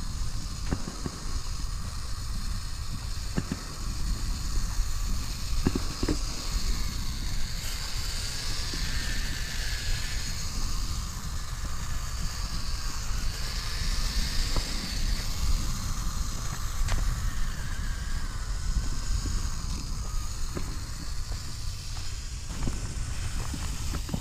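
Axial Capra RC crawler's electric motor and geartrain whining, the pitch rising and falling with the throttle. Tyres click and crunch over gravel and sticks, over a low rumble.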